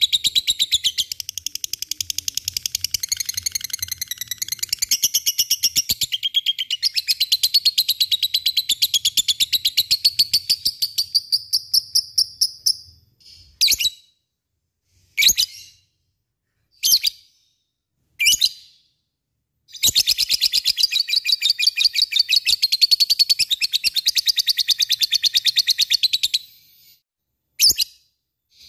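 Lovebird giving the long, fast chattering trill called ngekek: a rapid even run of high notes lasting about thirteen seconds, then four short bursts, then a second long trill of about seven seconds and one more short burst near the end.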